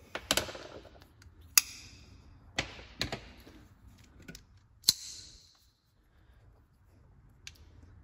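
Folding pocket knives handled and opened, a Buck 110 lockback and a Buck 838 Deploy automatic: about half a dozen sharp clicks and snaps of blades opening and locking and knives set down on the bench, two of them louder with a short rasp after.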